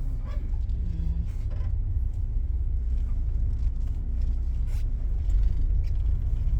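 Low, steady rumble of a car driving, heard from inside the cabin, growing louder near the end.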